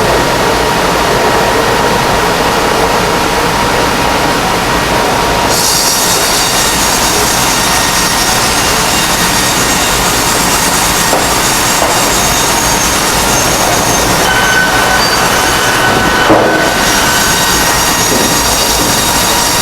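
Double-cut bandsaw mill sawing red oak: a loud, steady machine noise, with a high-pitched hiss from the blade joining in about five seconds in and one brief knock about three-quarters of the way through.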